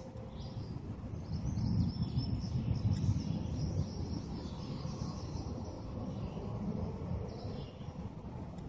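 Outdoor ambience: a low, uneven rumble with birds chirping faintly above it.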